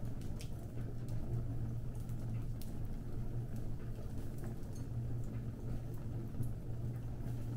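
Fire burning: a steady low rumble with scattered sharp crackles and pops every second or so.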